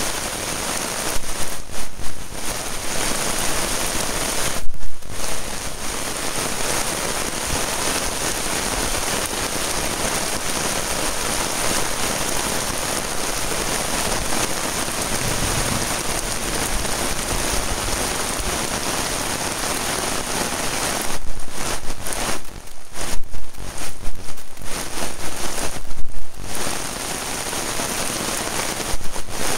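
Heavy rain falling on a gravel and asphalt driveway: a steady hiss, with a few louder, uneven stretches, the longest in the last third.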